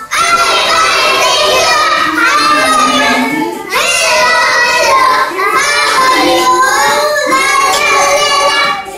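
A group of five-year-old children singing a hello song together, phrase by phrase, with a short break for breath about three and a half seconds in.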